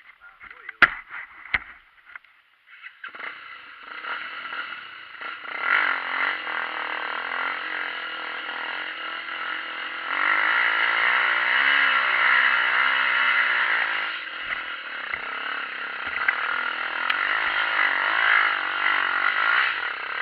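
Motorcycle engine running and being revved, its pitch rising and falling, louder from about ten seconds in. Two sharp clicks come first, before the engine sound starts about three seconds in.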